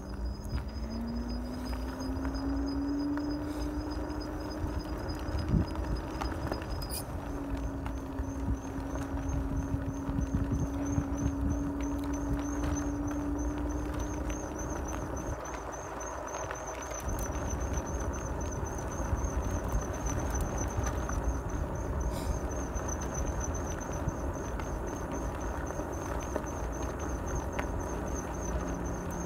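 Wind and road noise on a phone microphone from a ride on a Harley-style seated electric scooter. The electric motor's whine rises in pitch over the first few seconds as the scooter picks up speed, then holds steady and fades out about halfway through.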